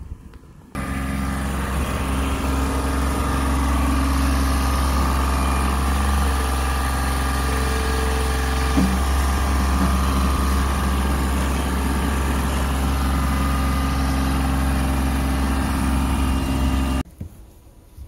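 A vehicle engine idling steadily. It starts suddenly about a second in and cuts off suddenly about a second before the end.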